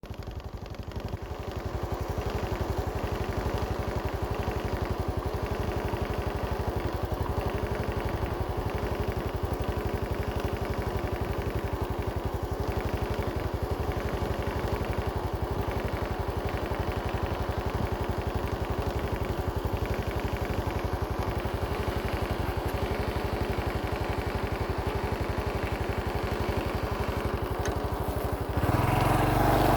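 An engine or motor running steadily with a fast, even pulse, getting louder just before the end.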